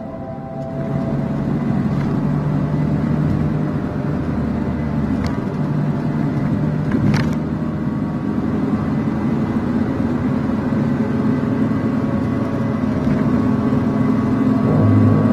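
Van engine and road noise heard from inside the cabin: a steady low drone, with two brief clicks partway through.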